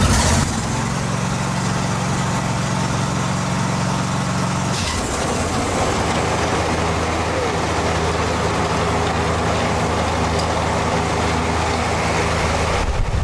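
Hustler Super Z zero-turn mower's engine running steadily just after start-up, with a broad rushing noise over the engine note. The note shifts slightly about five seconds in. The mower runs on freshly replaced spindle and idler bearings, with no bearing noise.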